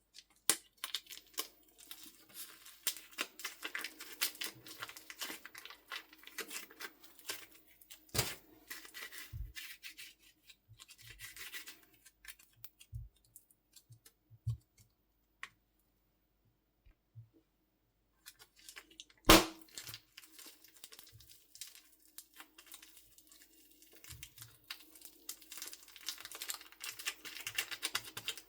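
Slime and soft clay being squeezed and stretched by hand, giving dense crackling, clicking and popping. Two louder snaps stand out, and the sound stops for a few seconds a little past halfway before resuming.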